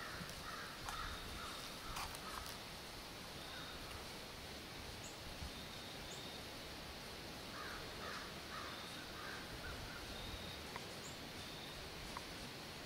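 Quiet woodland ambience with a steady hiss, and faint animal calls in two short series: one about half a second in and another around eight seconds in.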